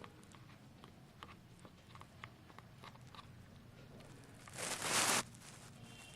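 One-month-old kittens purring steadily, with small clicks of teething kittens nibbling and chewing. About four and a half seconds in comes a short, loud rush of noise lasting under a second.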